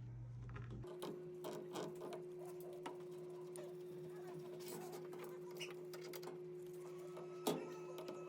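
Whirlpool washing machine running during a leak test. About a second in, a low hum cuts off and a steady higher hum takes over, with irregular light clicks and taps throughout and one sharper knock near the end.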